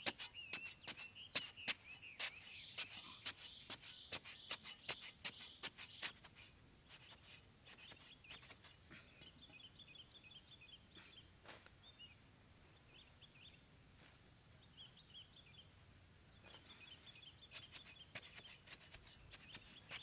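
Metal digging bar chopping into dry sandy soil in quick repeated strokes, about three a second, stopping about six seconds in and starting again near the end. Birds chirp faintly in the background.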